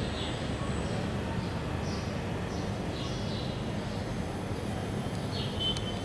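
Steady low background rumble, with faint short high chirps recurring every second or so.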